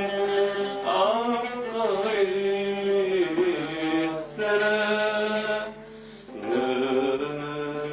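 A man singing an Arabic song in long, ornamented held notes, pausing for breath about six seconds in, over a low sustained accompaniment.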